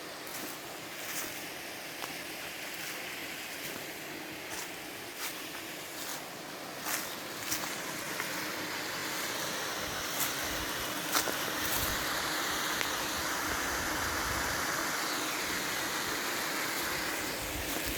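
Footsteps on the forest floor, heard as scattered crunches in the first half, over a steady rushing noise that grows fuller about eight seconds in. Low rumbles of wind on the microphone come in the second half.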